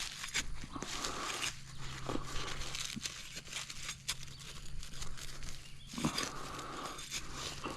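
A man breathing hard, heavy breaths every couple of seconds, with scattered sharp clicks and rustles from the work at hand.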